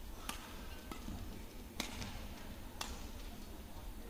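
Badminton rackets striking the shuttlecock in a rally: three sharp cracks, a second or so apart, over a low steady arena hum.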